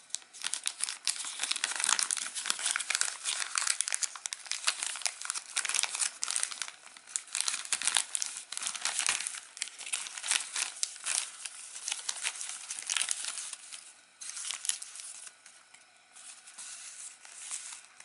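Clear plastic zip-lock bag crinkling and rustling as it is handled, opened and emptied. Dense crackling most of the way through, thinning out to scattered rustles for the last few seconds.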